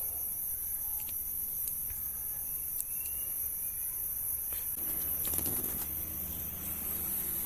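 Crickets trilling steadily in a continuous high-pitched chorus, with a few faint clicks.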